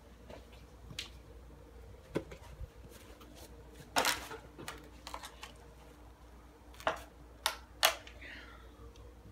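Scattered sharp clicks, taps and knocks from puppies scrambling about their pen and from the phone being handled, the loudest about four seconds in and a quick cluster near the end. A brief high squeak-like glide comes near the end.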